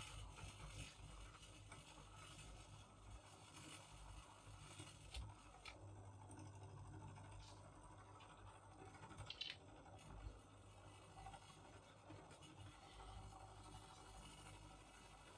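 Faint, steady low hum of a paper laminator's small electric motor running, with a few faint ticks and scratches. The motor spins inside but the heating rollers do not turn, so something in the drive is faulty.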